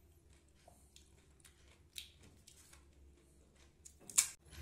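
Faint small clicks and taps of handling food, then about four seconds in one sharp crack as a crisp, hollow puri (phuchka shell) is broken open with the fingers.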